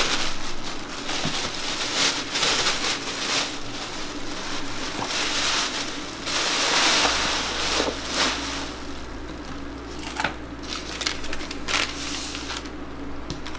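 Thin plastic bag crinkling and rustling as it is handled and pulled off a basket of proofed sourdough, busiest about six to seven seconds in.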